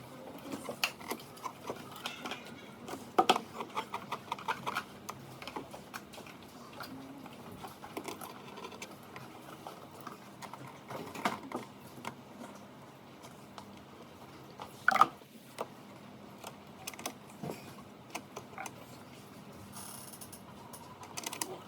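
Scattered small clicks, taps and knocks of tools and parts being handled while a UPS circuit board is worked on, with a quick run of ticks a few seconds in and one sharper knock near the middle.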